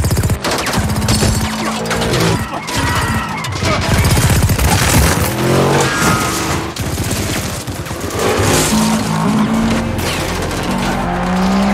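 Miniguns firing long, rapid bursts, with bullets striking rock and a car, over a dramatic film score.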